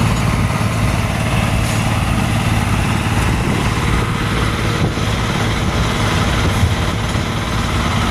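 Engine running steadily at an even speed, its sound strongest in the low end.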